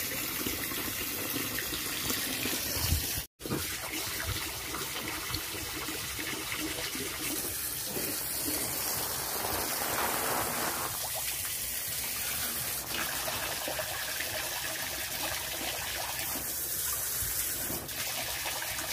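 Water running steadily from an expandable garden hose into an inflatable paddling pool, a constant splashing hiss. A brief gap about three seconds in.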